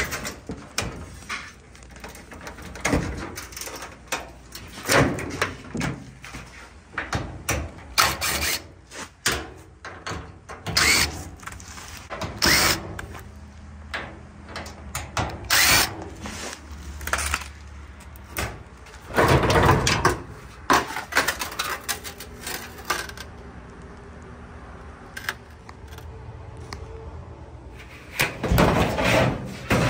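Knocks, clunks and rattles of a clothes dryer's sheet-metal panels and parts being taken apart, with short runs of a cordless impact driver. The busiest, loudest clatter comes about twenty seconds in and again near the end.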